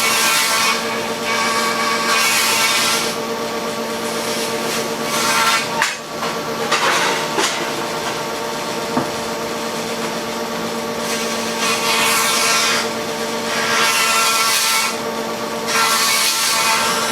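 An electric wood-planing machine, a jointer or thickness planer, is running with a steady motor hum. Its cutter head rasps loudly through pine boards in repeated passes a few seconds apart.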